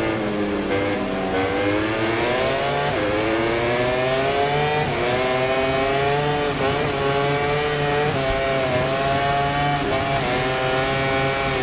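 MotoGP race bike's engine accelerating hard under a rider. Its pitch climbs and drops sharply at upshifts about three and five seconds in, then holds at high revs with a few brief dips.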